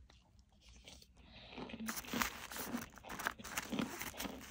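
Close-miked biting and chewing of a hard pressed powder brick: quiet at first, then, about a second and a half in, a run of crisp crunches as it is bitten and chewed.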